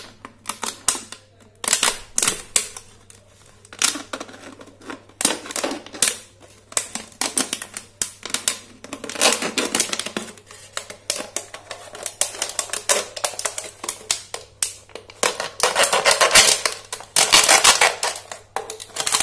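A kitchen knife sawing and cutting through a thin plastic water bottle, the plastic crackling and clicking in rapid, uneven bursts, loudest near the end.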